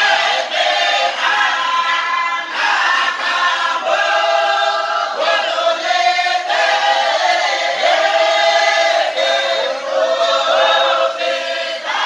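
A group of men singing a chant together, led by one voice, in long held notes that change pitch about every second.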